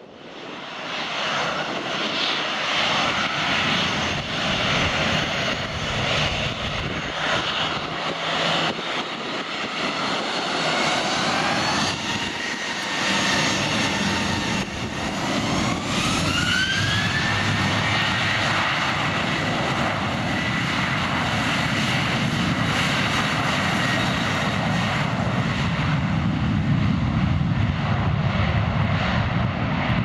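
Boeing 737-800's CFM56-7 jet engines running as the airliner taxis, a steady loud jet noise over a low rumble. About halfway through, a whine rises in pitch and then holds steady as the engines spool up for takeoff.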